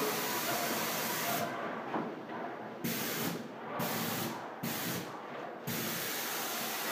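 Spray gun hissing as sprayplast, a sprayable plaster, is sprayed onto a wall. The hiss breaks off four times through the middle, each time for up to about a second, and picks up again.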